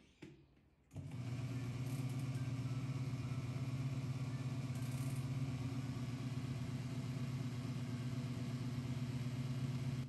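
A small folding washing machine's motor starts about a second in, after a couple of faint clicks, and runs with a steady hum.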